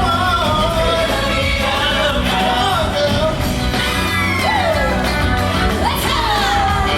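Loud rock-and-roll music from a live stage show: a singer holding notes and sliding down in pitch over a steady band, with some shouts.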